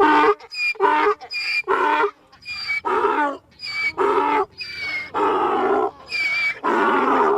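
Donkey braying: a run of hee-haws, a short high 'hee' alternating with a longer, louder, lower 'haw', about seven times over, the haws growing longer toward the end.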